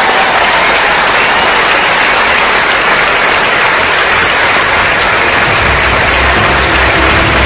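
A large auditorium audience applauding and cheering in a dense, steady roar of clapping. Music with a low bass beat comes in under it a little more than halfway through.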